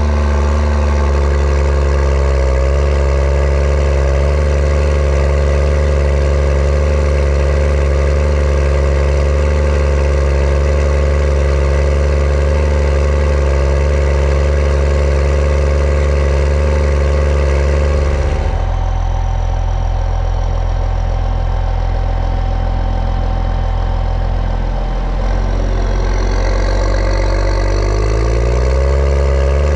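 Case IH Puma 225 CVX's six-cylinder diesel engine running loud and close at the exhaust stack, working at steady revs. About two-thirds of the way through the revs drop. A few seconds later they climb back up.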